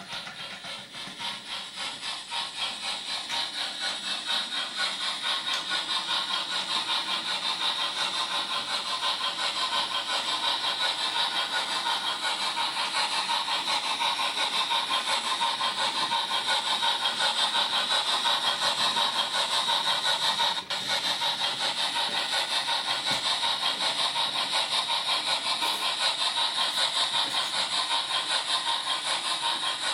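Model 2-6-0 steam tank locomotive running with its goods train, a rapid, even pulsing that grows louder over the first few seconds as the train approaches, then holds steady.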